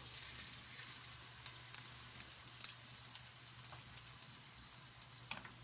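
Hot cooking oil sizzling in a wok as squash fritter batter fries, with a steady hiss and scattered sharp pops and crackles, a cluster of louder pops about two seconds in.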